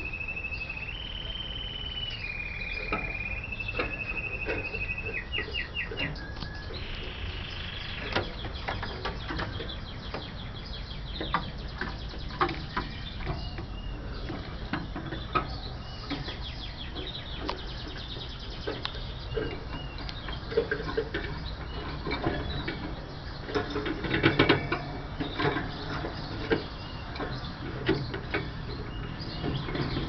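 Gloster canary singing: held, rolling notes at steady pitches that step up and down, then a quick run of repeated notes. After the first several seconds come scattered short chirps and clicks.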